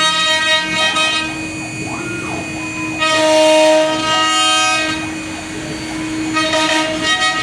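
CNC wood router at work: the spindle motor's steady high whine, with the axis motors' pitch gliding briefly about two seconds in and a louder, hissier stretch of cutting through the wood from about three to four and a half seconds.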